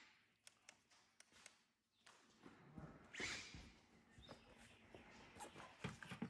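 Near silence with a few faint scattered clicks and a brief rustle about three seconds in.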